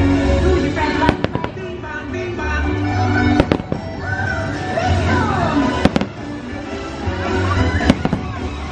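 Aerial fireworks bursting with a series of sharp bangs, about six in all, over the show's music playing loudly on the park's loudspeakers.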